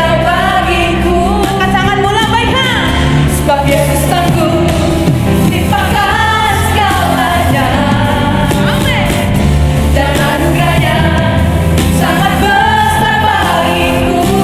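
Live worship music: a singer with a full band, bass and drums underneath, singing a praise song in Indonesian.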